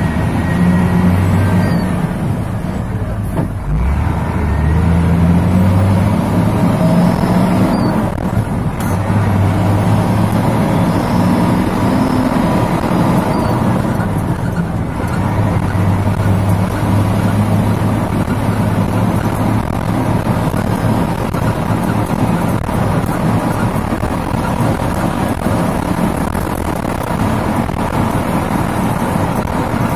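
Old Mitsubishi Fuso dump truck's diesel engine heard from inside the cab, working hard under a heavy sand load. Its note climbs and settles in stretches, with brief breaks about 4, 8 and 15 seconds in, as it goes up through the gears.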